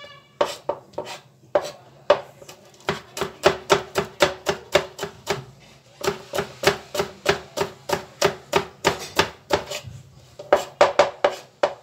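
Kitchen knife chopping fresh coriander and green chillies finely on a plastic cutting board: quick, even knife strikes on the board, about four to five a second, in runs with short pauses between them.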